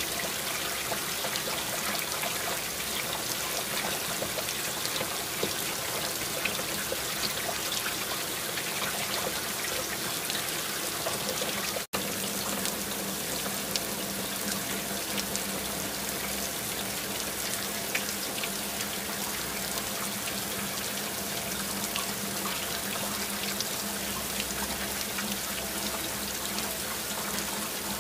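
Steady rain falling, many single drops ticking over an even hiss; the sound drops out for an instant about twelve seconds in.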